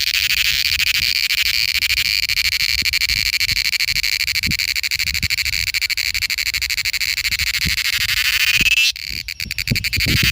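Cicada buzzing: a loud, high, rapidly pulsing drone that breaks off about nine seconds in and stutters into short bursts, with faint low knocks underneath.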